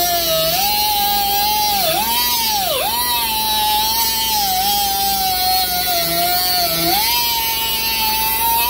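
Central Pneumatic composite air die grinder spinning a small cutoff wheel through steel square tubing: a steady high whine over a hiss. The pitch dips each time the wheel bites, deepest about three seconds in, then climbs back as the load eases.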